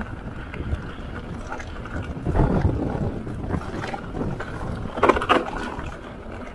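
Mountain bike riding down a dirt and stony singletrack: tyres rolling over dirt and loose stones with wind rumbling on the microphone. Louder rattling jolts of the bike over bumps about two and a half seconds and five seconds in.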